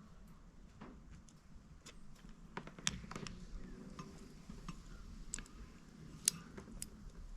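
Scattered small clicks and taps of the parts of a disassembled car wiper switch being handled, two of them sharper, about three seconds in and about six seconds in.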